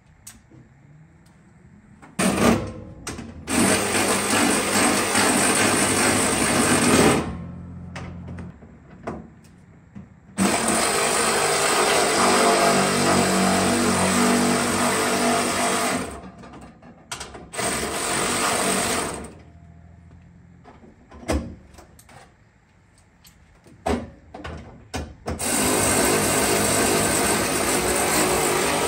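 A power tool run in four bursts of a few seconds each, tightening down the fuel cell's mounting hardware, with quiet gaps and a few clicks between the bursts.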